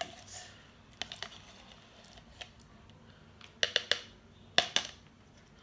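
Sharp clicks and taps of small plastic objects being handled: a pair about a second in, then a quick cluster of three or four and a couple more near the end.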